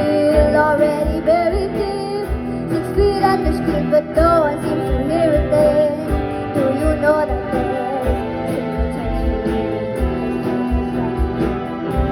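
A young band playing a pop song live: a girl singing lead over a steady drum beat, guitars and keyboards.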